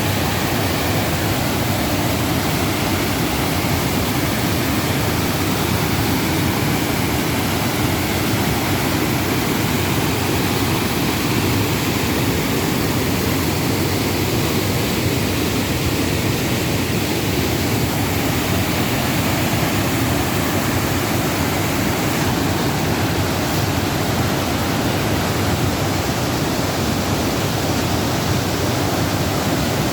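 Upper Düden Waterfall: a loud, steady rush of falling water.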